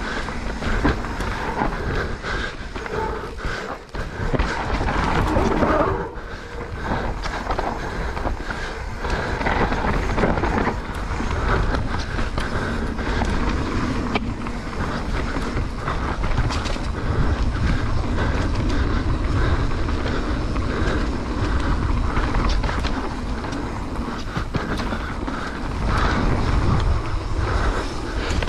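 Mountain bike descending a rough trail: continuous tyre noise on dirt and stones with the bike clattering and rattling over the bumps, and a steady low rumble underneath.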